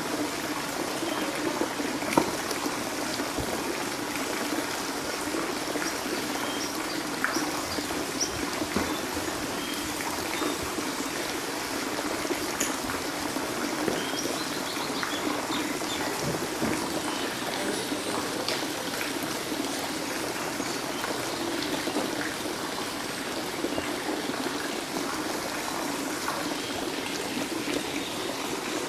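Steady trickling and splashing of water in a pond crowded with paddling turtles, with small scattered ticks and one sharp tap about two seconds in.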